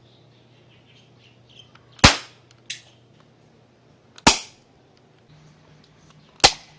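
Air pistol fired three times, about two seconds apart, each shot a sharp crack. A fainter click follows about half a second after the first shot.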